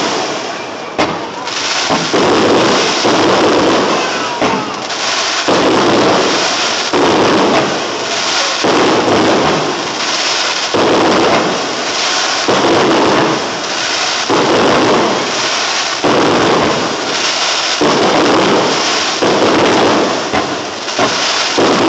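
Fireworks display: aerial shells bursting and crackling in quick succession, a loud burst about every second and a half.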